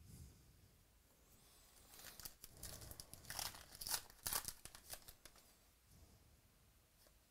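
Trading-card pack wrapper being torn open by hand, with crinkling of the wrapper. A run of tearing and crinkling about two seconds in lasts roughly three seconds and is loudest near the middle.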